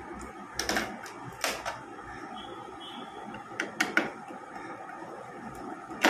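Scattered sharp clicks and light knocks of a screwdriver and hands working on a Kyocera copier's plastic scanner frame, in a few short clusters, the loudest near the end, over a steady low background noise.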